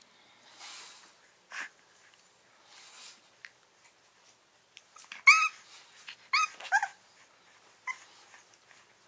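Old English Bulldog puppies giving short, high-pitched yelps. There is a faint one early, then three loud ones in quick succession a little past the middle, and a fainter one near the end.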